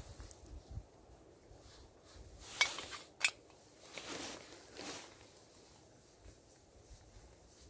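A few light clicks and clinks from small hard objects being handled, the two sharpest about two-thirds of a second apart near the middle, with softer bumps after them.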